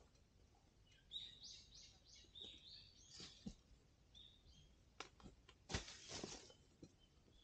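Faint bird song in a quiet forest: a quick run of high chirping notes, then a few scattered chirps. A couple of faint clicks and a short rustle about six seconds in.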